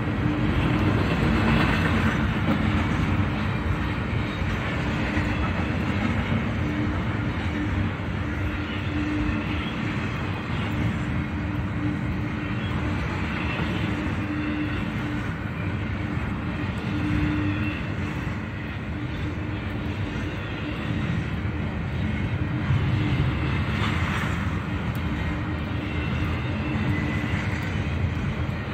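Union Pacific freight train's intermodal container cars rolling past, a steady rumble of wheels on rail with a steady low hum underneath.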